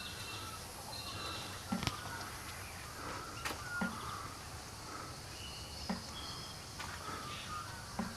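Several birds calling outdoors with short, scattered whistled notes over a quiet steady background, with a soft knock about every two seconds.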